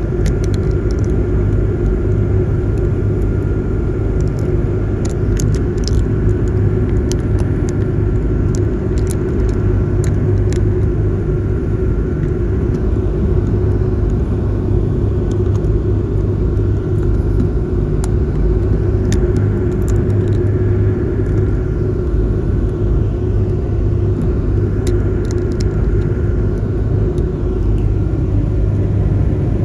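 Passenger ferry under way: its engines drone steadily with a low hum and a constant higher whine above it, with a few faint scattered ticks.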